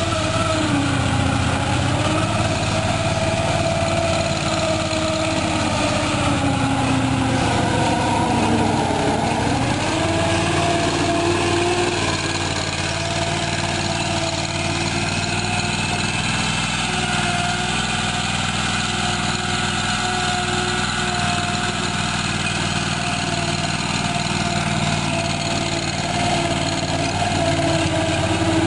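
Small engine of a TerraTrac Wildcat tracked ATV running steadily. Its pitch dips and then comes back up about nine seconds in.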